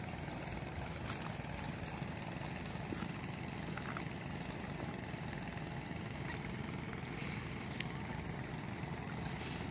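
Steady low background noise with a few faint clicks.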